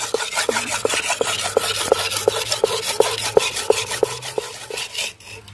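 A steel knife blade being stroked back and forth on a wet sharpening stone, about three strokes a second, each a short pitched scrape, trailing off near the end. The blade is laid low to thin the edge and raise a burr.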